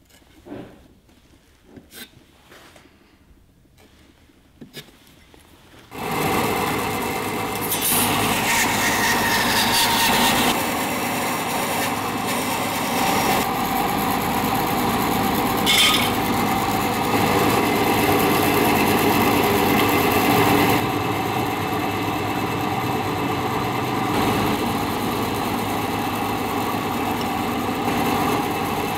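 A few faint scrapes and taps of hand tools on wood, then about six seconds in a woodworking power tool starts abruptly and runs steadily, with a falling sweep in pitch shortly after it starts and one sharp click partway through.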